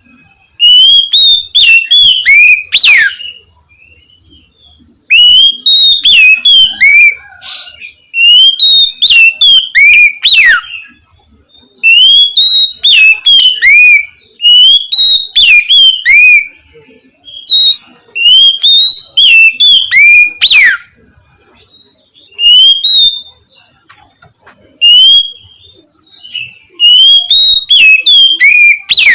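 Oriental magpie-robin singing its loud, clear whistled 'ngeplong' song: phrase after phrase of sliding whistled notes, each one to three seconds long, with short pauses between them.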